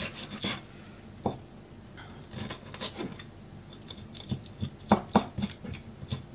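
Kitchen knife clicking and scraping on a plastic cutting board while small fish are headed and gutted: scattered light knocks, with two sharper knocks close together about five seconds in.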